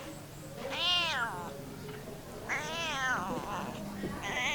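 Domestic cat meowing three times. Each meow rises and then falls in pitch, and the third begins near the end.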